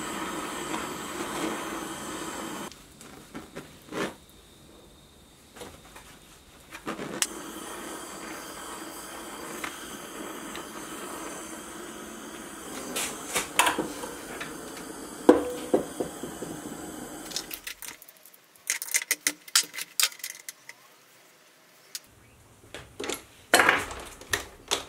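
Handheld propane torch hissing steadily as it heats an aluminium pulley to break a super glue bond, dropping away for a few seconds and coming back. Near the end the hiss stops and there are scattered sharp metal clinks and knocks.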